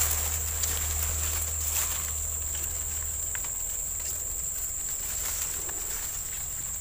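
Steady high-pitched buzzing of insects in swampy grass, with faint rustling and small ticks as vegetation is brushed through.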